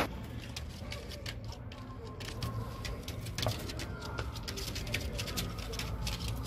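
Pigeons in a loft: scattered light clicks and scrapes as the birds move about, over a steady low hum.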